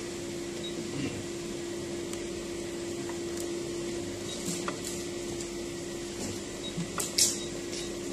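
Hemodialysis machine running with a steady hum, with a few light clicks and taps from handling its blood lines, a couple near the middle and a pair near the end.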